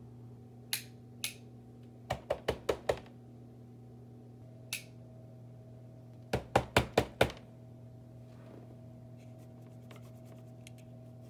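Sharp clicks and light knocks in two quick runs of five or six, over a steady low electrical hum, as a Hornby 00-gauge model tank engine is tried on the track and fails to run. A faint steady tone comes in about four and a half seconds in.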